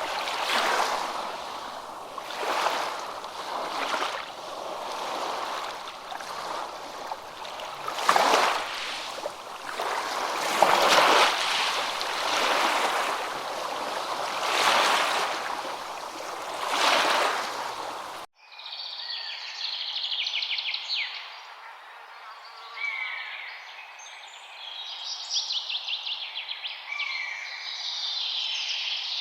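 Rushing water, swelling and fading every couple of seconds like waves washing in. About two-thirds of the way through it cuts off abruptly into birdsong: several birds with quick high chirps and trills.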